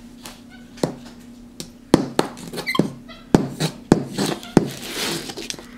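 Felt-tip marker tapping and dabbing on paper over a hard tabletop: a string of sharp, irregular taps, with a short stretch of scratchy scribbling about four to five seconds in.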